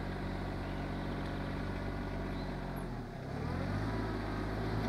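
Rural King RK24 subcompact tractor's three-cylinder diesel engine running steadily under work. About three seconds in, its pitch dips briefly and comes back up.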